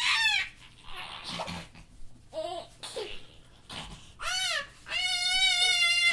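A young child laughing in squeals and breathy giggles, ending with a long, high, held squeal.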